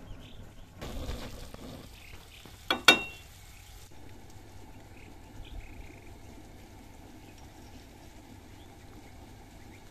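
A large pot of rice at a foaming boil on a stove, giving a low, steady bubbling. About three seconds in, a sharp metallic clink rings out briefly.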